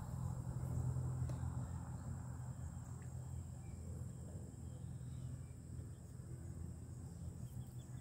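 Insects chirring in a steady high, even tone over a low steady hum.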